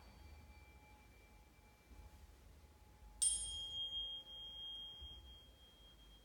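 Small metal sound-healing instruments ringing. The soft tone of a small singing bowl fades away, then about three seconds in a high-pitched bell-like instrument is struck sharply and rings on as one pure high tone.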